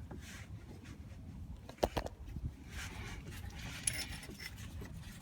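Hand tools clinking on a car's suspension bolt: two sharp metallic knocks about two seconds in, then a light jingling clatter with a brief ring.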